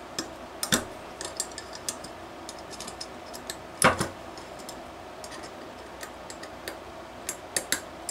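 Light metal clicks and clinks from an aluminium model-airplane engine test stand being handled, its bearers and screws worked by hand. Two louder knocks come about a second in and about four seconds in, with a quick run of clicks near the end.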